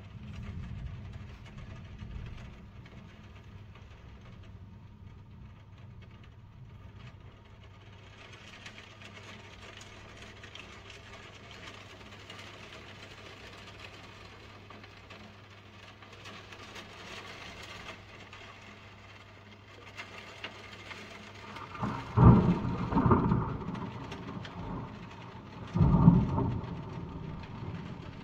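Steady rain falling through a thunderstorm, heavier from about a quarter of the way in. Near the end come two loud claps of thunder, the first rolling on for a second or so, the second about three seconds later.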